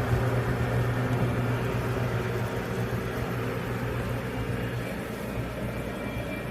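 Running Summit ice maker giving off a steady low machine hum, easing slightly near the end.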